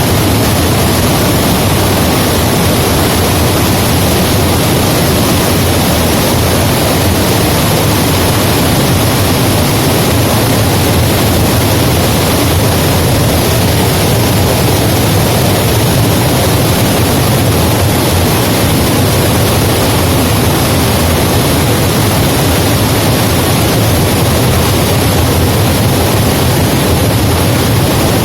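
Water spilling over a dam crest and falling as a waterfall, heard from behind the curtain of falling water: a loud, unbroken rush.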